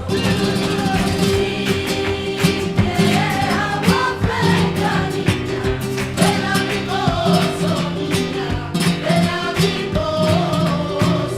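A flamenco-style Christmas carol (villancico): sung voices over instrumental accompaniment, with regular percussive strikes keeping the beat.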